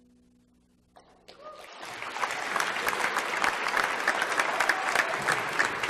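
The last chord of a ukulele fades out, then an audience breaks into applause about a second in, swelling quickly and going on steadily.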